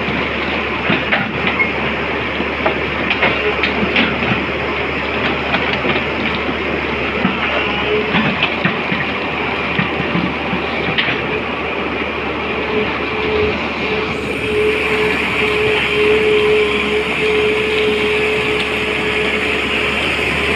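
SANY tracked excavator working, its engine and hydraulics running steadily as the bucket digs gravelly mud, with irregular clicks and clatter of stones and metal in the first half. A steady whine joins in past the middle.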